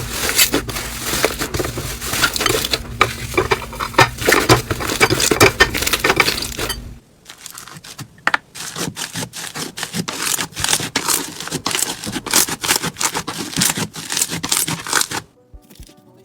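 Hands pressing and working crunchy slime, giving dense crackling and crunching. The sound cuts off about seven seconds in, the crackling starts again at a lower level, and it stops shortly before the end.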